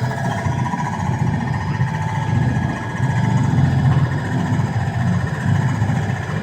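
Conveyor curing dryer for screen-print inks running: a steady low mechanical rumble with a constant whine above it.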